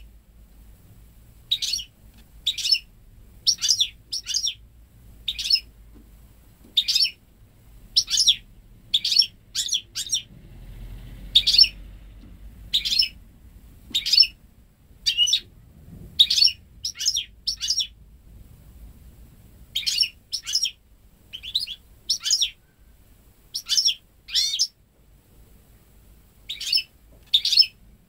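Goldfinch × canary hybrid (mule) giving short, high chirps, singly or in quick pairs, about one a second with brief pauses between.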